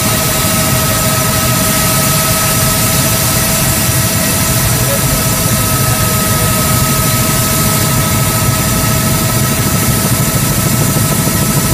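Helicopter in flight heard from inside the cabin: loud, steady engine and rotor noise with a constant high whine over a low rumble.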